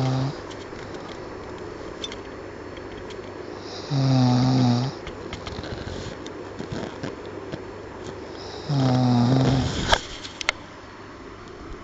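A sleeping person snoring loudly: a pitched, buzzing snore about every four to five seconds, each lasting about a second. A couple of sharp clicks come just after the last snore.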